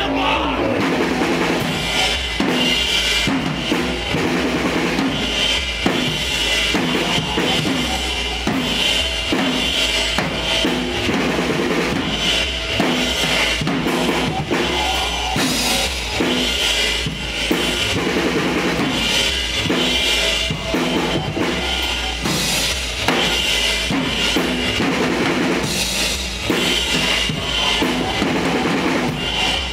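A live band playing loud amplified music: a drum kit keeps a steady beat with bass drum, snare and cymbals, under guitar.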